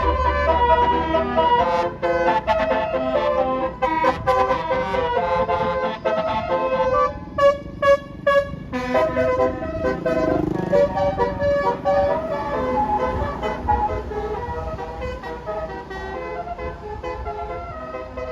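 Bus telolet horn of the Basuri type playing a melody of stepped, held notes, with a quick on-off pulsing stretch about seven seconds in. The horn grows fainter near the end.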